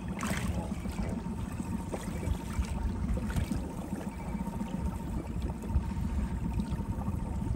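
Outboard motor running at low trolling speed, a steady low rumble, under water splashing and lapping against the boat's hull, with a brief louder splash about a quarter second in.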